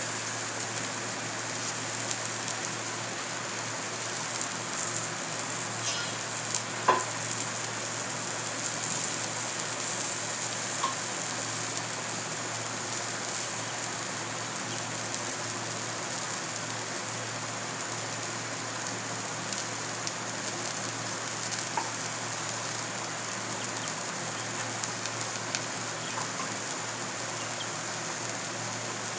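Masala-coated brinjal (aubergine) slices shallow-frying in sesame oil on a dosa tawa: a steady sizzle with a few sharper crackles, the loudest about seven seconds in.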